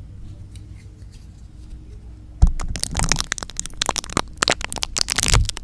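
ASMR sounds close to a microphone: a low hum with a few soft clicks, then, about two and a half seconds in, a sudden loud run of rapid crackling, scratching and tapping.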